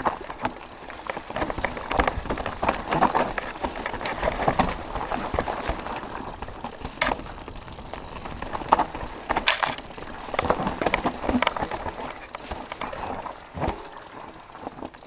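Mountain bike descending rocky singletrack: tyres crunching over loose stones and rock, with the bike rattling and knocking continuously. There are a few sharp louder impacts about seven and nine and a half seconds in.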